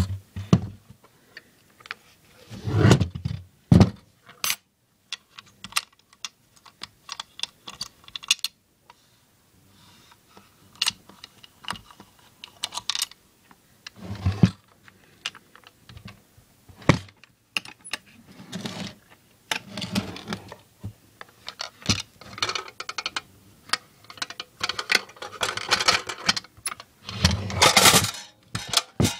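Irregular clicks, knocks and rattles of a metal carrying case and the vintage multimeter inside being handled by hand, with two sharper knocks a few seconds in and a longer stretch of scraping and rattling near the end.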